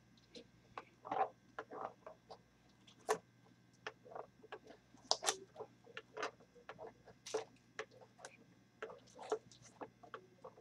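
Hands handling small cardboard trading-card boxes on a tabletop: irregular light taps and clicks as the boxes are shifted and set down.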